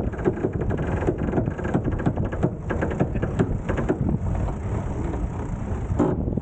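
Wind buffeting the microphone, with a fast run of ratcheting clicks in the first half, typical of a yacht's sheet winch being ground in to trim the mainsail.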